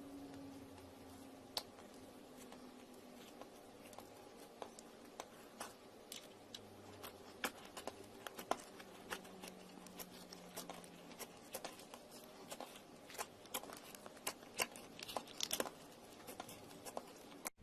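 Slime being squeezed and worked by hand: a run of small, irregular clicks and pops from air pockets in the slime, coming faster near the end.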